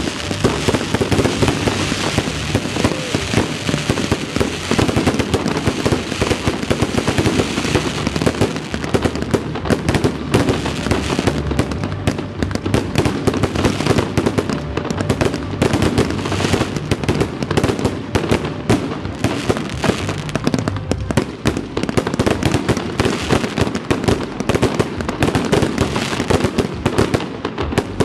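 Aerial firework shells bursting overhead in quick succession: dense, overlapping bangs and crackling with no pause.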